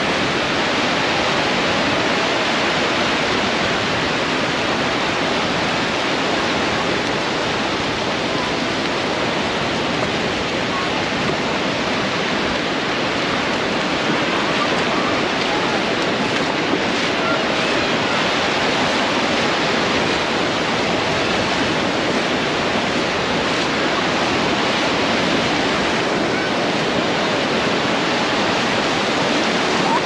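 Small ocean waves breaking and washing over shallow water, a steady rushing surf.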